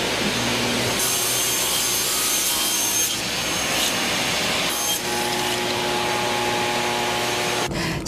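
Table saw cutting through wooden board, a steady sawing noise of the blade in the wood. Its pitch and tone shift a few times as the cut goes on, and it stops just before the end.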